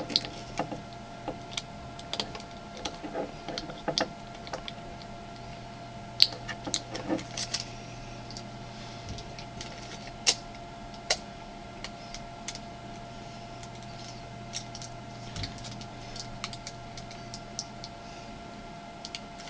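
Small clicks and crinkles of masking tape and batteries being handled while a battery pack is taped together, scattered and irregular, a few sharper ones standing out. A steady low hum runs underneath.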